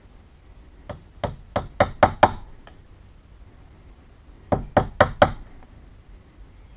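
Hammer tapping a wood chisel into the edge of a hollow-core door, scoring the outline of a latch mortise: a quick run of six taps, a pause, then four more. The strikes are kept light so the thin strip of wood at the door edge does not crack.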